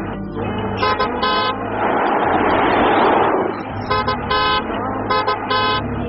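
A car horn honking in short double toots, again and again. A loud rushing noise swells and fades in the middle.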